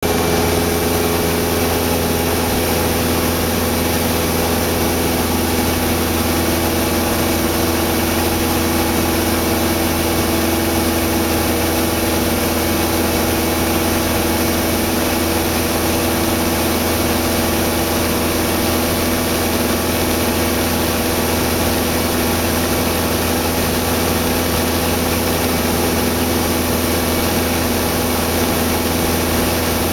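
Cessna 172 Skyhawk's piston engine and propeller running steadily in cruise flight, heard from inside the cabin, over a steady hiss.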